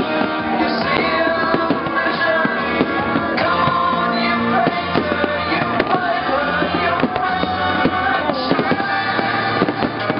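A song with a singing voice plays loudly throughout, and firework bursts break through it repeatedly as sharp bangs and crackle.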